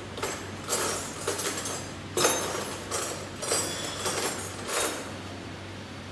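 Compressed air being connected to a rotary pouch packing machine's pneumatic system: about eight short hissing bursts of air with light metallic clinks, irregularly spaced, stopping about five seconds in, over a faint steady hum.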